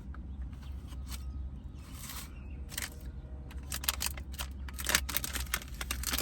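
Eating and handling food: a run of sharp clicks and crackles from chewing and from food containers and utensils, growing busier in the second half, over a steady low hum.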